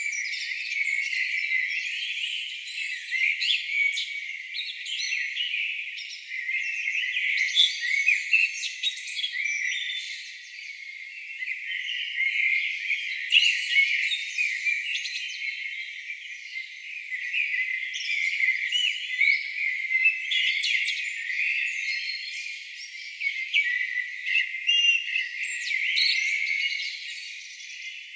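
Many songbirds singing at once in a dense, continuous chorus of overlapping chirps, trills and whistles. It sounds thin, with no low sounds at all.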